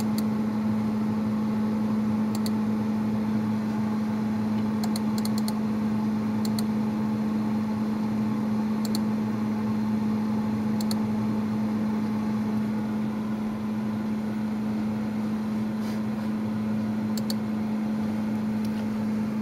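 Steady machine hum with a single low, even tone and a light hiss, as of a computer and its fans running. Light computer mouse clicks come every few seconds, with a quick run of several about five seconds in.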